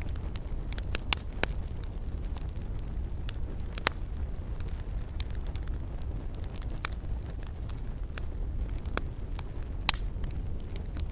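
Wood fire burning in a fireplace: a steady low rumble of flames with irregular sharp crackles and pops, the loudest a few single snaps scattered through.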